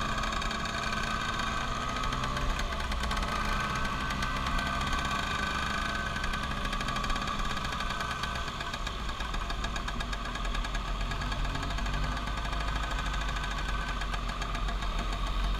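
Motor scooter engine running steadily while riding at low speed, with a steady low rumble underneath.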